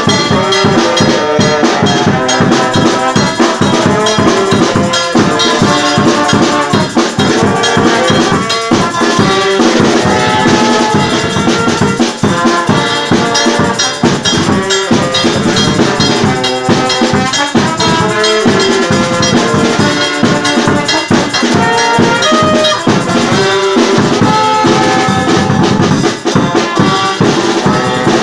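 Small brass band playing: trombones, a trumpet and an alto saxophone over a bass drum and a tambourine, with a steady beat.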